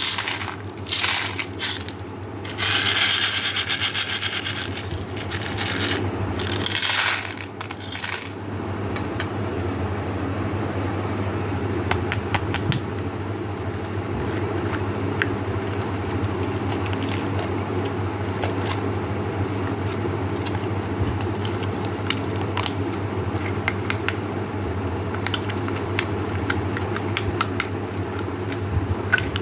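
Small hard candy pieces pouring and clattering against each other and a hard container, loudest in several bursts over the first eight seconds. After that a steady low hum runs on under scattered small ticks as single pieces settle.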